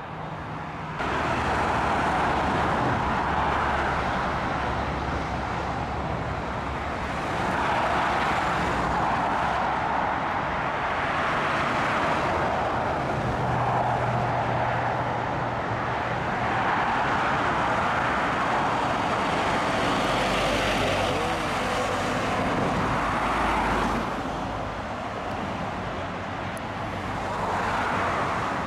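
Road traffic noise from vehicles passing, including a Scania fire engine driving by with no siren, the tyre and engine noise swelling and fading every few seconds.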